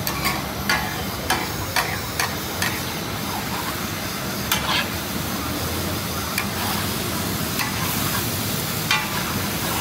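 Metal spatula scraping and clinking against a large flat tawa while beef liver cubes are stirred and fried in oil, over a steady sizzle. The clinks come about twice a second for the first few seconds, then more sparsely.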